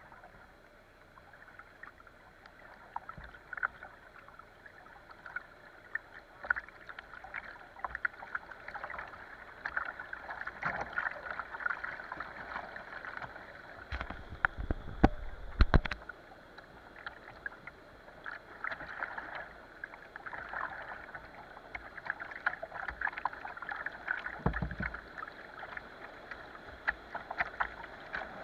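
Whitewater rapids rushing and splashing around a kayak's bow, heard close up from a camera on the bow. A cluster of heavy thumps comes about halfway through, and another about two thirds of the way in.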